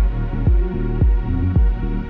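Background music with a steady thumping beat, a little under two beats a second, over sustained low tones.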